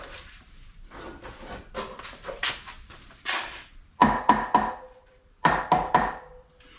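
Two quick volleys of three or four hammer blows on metal, about four and five and a half seconds in, each leaving a brief metallic ring. They are knocking the Northstar V8's cylinder head down past a dowel pin that stops it seating. Lighter clunks and scrapes of metal parts come before them.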